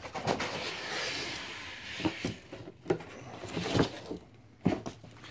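Cardboard shipping box being handled and its contents slid out: a sliding, rustling scrape of cardboard, then several sharp knocks and taps as the box and packing are moved about.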